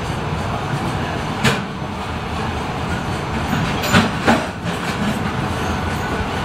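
JR Freight container wagons rolling past in a steady rumble. Their wheels clack sharply on the rail about one and a half seconds in, then twice in quick succession around four seconds in.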